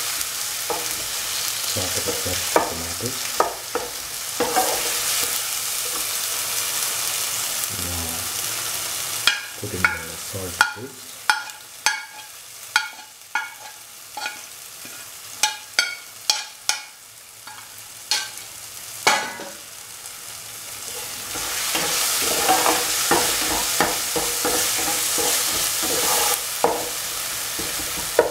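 Vegetables sautéing in hot oil in a pan, sizzling as a spatula stirs them with scrapes and knocks against the pan. From about nine seconds in, the sizzle dies down for a while under a quick run of sharp knocks. It rises again near the end.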